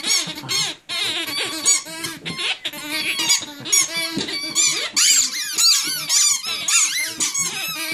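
Rubber squeaky dog toys squeaking rapidly and over and over as a puppy bites and tugs at them: a dense run of short, high squeaks with only brief gaps.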